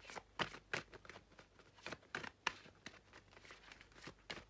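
Oracle cards being shuffled and handled: an irregular string of soft card snaps, flicks and slides.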